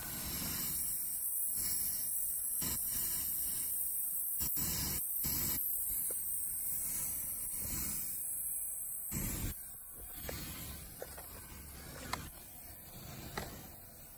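Brazing torch hissing steadily as the refrigerant piping on a rooftop air-conditioning unit is brazed. The hiss falls away about nine and a half seconds in, leaving a quieter background with a few faint clicks.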